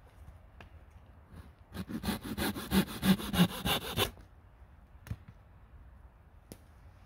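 A small hand blade cutting into a green wooden pole with a quick run of rasping strokes, about six a second, for roughly two seconds. Two single knocks of wood follow.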